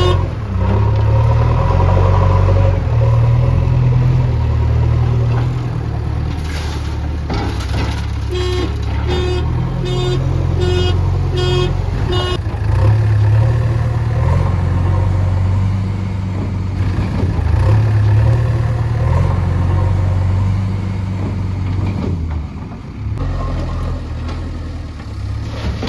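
Heavy diesel machinery running steadily under load, a backhoe loader working with tipper trucks. About a third of the way in, a vehicle's warning alarm beeps about six times, evenly spaced.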